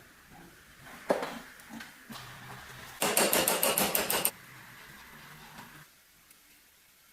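Workshop handling of metal parts: a sharp knock about a second in, then a quick run of rapid metallic clicks lasting just over a second.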